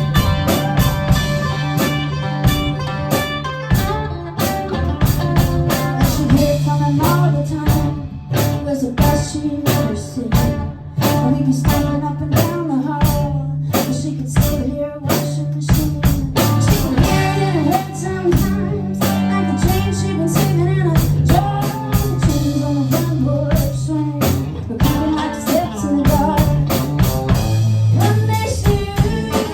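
A live band playing an instrumental passage: guitar over a steady drum beat and sustained low bass notes.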